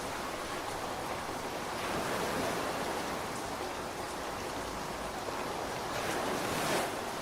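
Steady rain, a continuous even hiss that swells slightly about two seconds in and again near the end.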